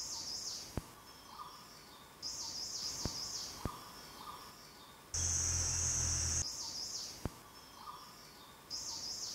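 Forest ambience: a bird's warbling call phrase recurring every few seconds, with a few sharp clicks, and a louder steady high insect-like buzz with a low hum for about a second and a half in the middle.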